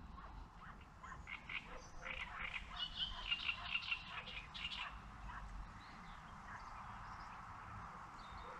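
Frogs croaking in a chorus: a stretch of quick, overlapping croaks in the first half, then a steadier, even chorus.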